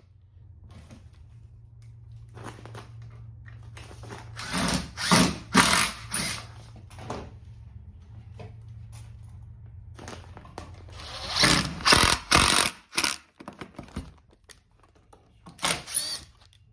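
Power drill driving screws to fix an electrical box to the framing, running in several short bursts a few seconds apart over a steady low hum.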